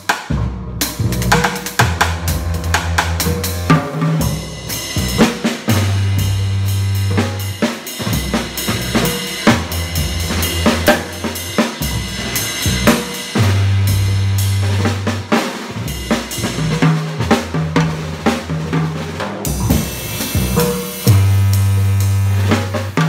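Drum kit played live with sticks, snare hits and cymbal crashes, over a looping Korg Kaossilator synth pattern whose deep bass line comes round again roughly every eight seconds.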